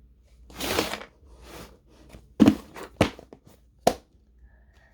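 Handling noises: a rustling swish, then three sharp knocks spread over about a second and a half.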